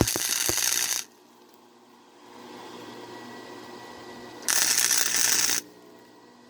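Electric arc welder laying two short welds on steel saw-blade pieces, each a burst of crackling sizzle about a second long, the second about three and a half seconds after the first. A low steady hum runs between them.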